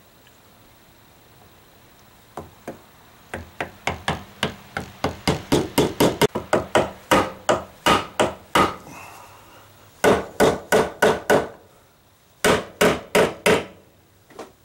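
Hammer tapping a glued maple spline down into a routed groove in a wooden table leg's foot. A long run of sharp strikes at about three a second, then, after a pause, two quicker bursts of blows and a last single tap near the end.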